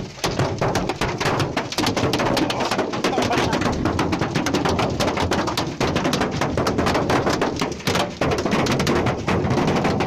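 Hailstones pelting a car's windshield and body, heard from inside the car as a loud, dense rattle of rapid impacts without a break.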